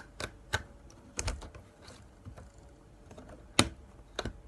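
Scattered sharp clicks and taps of small objects being handled, with one louder knock about three and a half seconds in.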